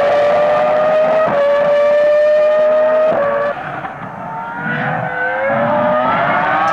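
2004 Formula One car's V10 engine at high revs, pitch climbing and stepping down with two quick upshifts as it accelerates away. After a cut, another F1 car's engine is heard at a distance, its pitch rising steadily as it accelerates.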